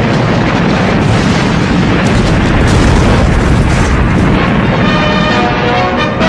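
A loud, sustained rumbling roar mixed with soundtrack music; about five seconds in the roar eases and steady musical tones come through.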